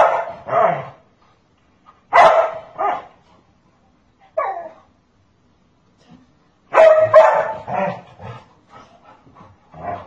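Golden retriever barking in several bursts, with pauses of a second or two between them. It is protective barking at a person it sees threatening a child.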